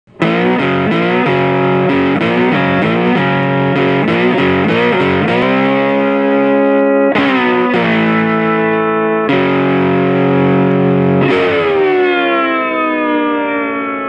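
Distorted electric guitar playing a rock riff as intro music: quick picked chords, then held power chords. The last chord rings out and fades, its pitch sagging downward.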